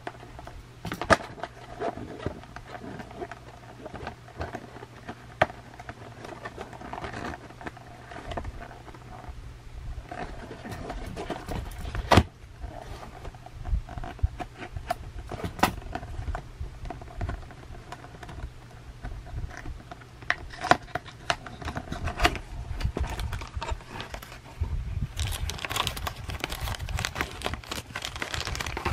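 Scattered light clicks and taps of handling, then plastic packaging crinkling in the last few seconds.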